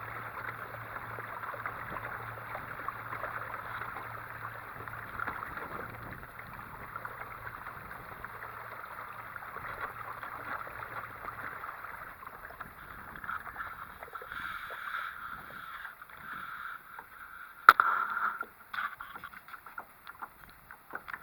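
Kayak running under a 30 lb electric trolling motor: steady rushing of water along the hull, with a low steady motor hum that stops about halfway. A single sharp knock comes near the end.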